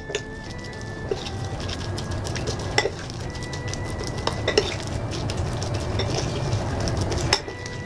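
Metal spoon stirring a sticky minced-shrimp paste with diced carrot and spring onion in a ceramic bowl: a steady scraping, mixing sound with a few sharp clinks of the spoon against the bowl, one of the loudest near the end.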